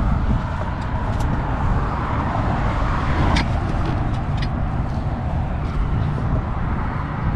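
Steady road traffic noise from cars on the street. A few short, sharp clicks stand out over it, the loudest about halfway through.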